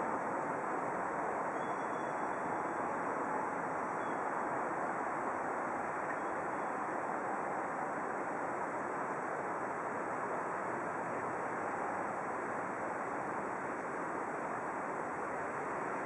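Steady outdoor rushing ambience with no distinct events, the even noise of distant traffic, wind and water blending together, with a faint high steady whine above it.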